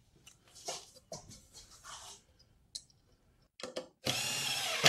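Cordless drill motor starting up about four seconds in and running steadily with an even whine, after a few light knocks and handling sounds on the wooden frame.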